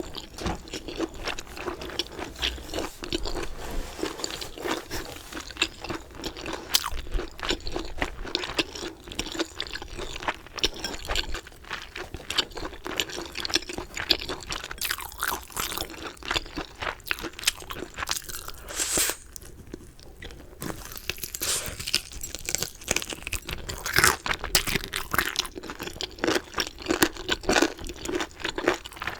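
Close-miked crunching and chewing of crispy, galbi-sauced fried chicken: irregular crisp crackles from the coating as it is bitten and chewed, with a brief quieter lull about two-thirds of the way in.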